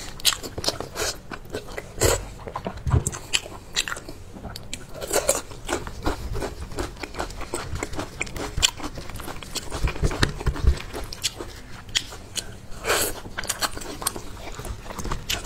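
Close-miked eating sounds: gloved hands pulling and tearing meat from a chili-sauced braised sheep's head, with chewing and many small wet clicks and smacks, and a few dull thumps.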